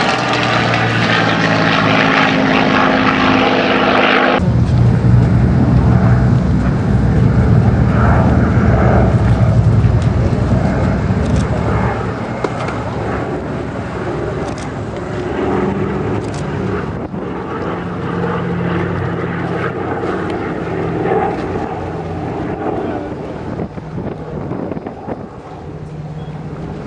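A Supermarine Spitfire's piston engine droning in a flypast, cutting off abruptly about four seconds in. Then the twin radial piston engines of a Douglas DC-3 drone steadily on a display pass, growing fainter over the last part.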